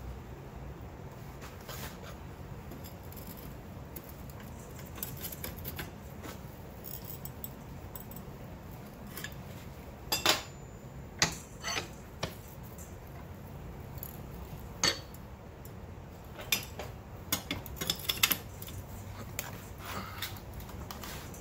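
Metal clinks and clanks of a large pipe wrench knocking against red-hot steel tong stock clamped in a vise while it is fitted and turned to twist the bar. The clinks come singly and in short clusters, loudest about halfway through and in the second half, over a steady low hum.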